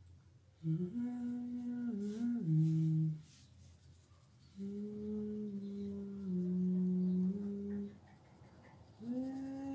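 Someone humming a slow tune of held notes that step down in pitch, in two phrases with a pause between, starting a third phrase near the end.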